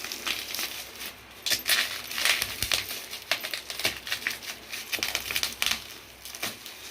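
Packaging being handled and opened by hand: crinkling and rustling with small clicks and taps, loudest a couple of seconds in.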